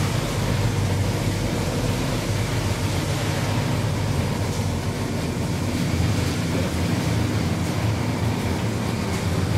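Fishing trawler's engine running steadily with a low drone, under an even rush of noise from the boat at sea.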